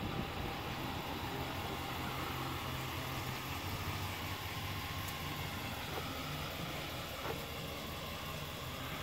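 Pickup truck engine idling steadily, with a couple of faint clicks in the second half.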